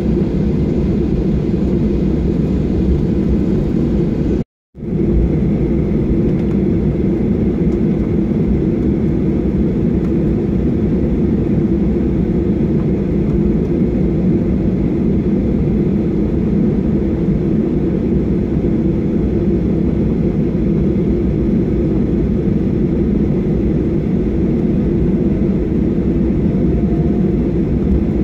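Steady low rumble of a jet airliner heard from inside the cabin as it taxis with its engines at idle. The sound cuts out briefly about four and a half seconds in.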